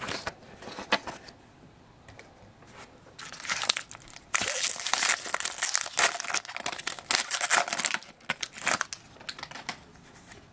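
Foil wrapper of a baseball card pack being torn open and crinkled by hand, soft rustling at first, then loud dense crackling from about three seconds in until nearly nine seconds.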